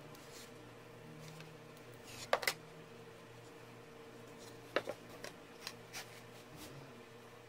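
Light clicks and knocks of a steel ruler and pen being handled and set down on acacia boards, and the boards being shifted on the bench: two sharp clicks a couple of seconds in, then a cluster of smaller ones, over a faint steady hum.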